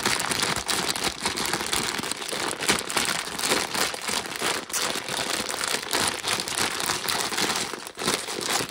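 Plastic grain spawn bag crinkling and crackling continuously as gloved hands squeeze and break up the mycelium-bound corn kernels inside. This is a break and shake: breaking apart a colonized block of grain spawn to spread the mycelium evenly.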